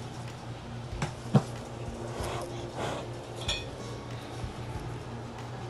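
Small objects being handled: a few light knocks and clinks, the sharpest about a second and a half in, over a steady low hum.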